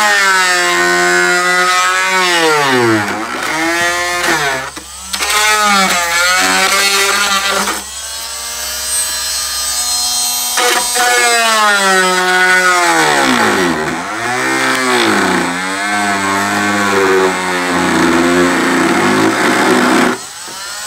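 Dremel oscillating multi-tool running as its flush-cut blade cuts into the model airplane wing around a hatch opening. The motor's whine swoops down in pitch each time the blade is loaded and climbs back as it frees up. It winds down near the end.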